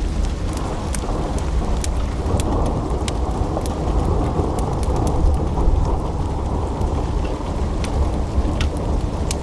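Wood fire burning in a fireplace: a dense low rushing roar of flames with sharp crackles and pops from the logs, scattered irregularly.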